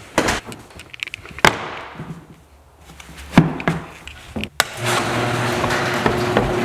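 Sharp knocks and clicks from a door and footsteps on a wooden floor and wooden stairs, a few separate hits with quiet between. About two-thirds of the way through, a steady hum comes in and continues.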